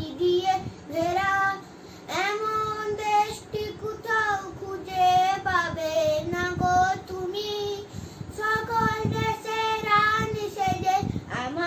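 A young boy singing solo and unaccompanied, in long held phrases with short breaths between them.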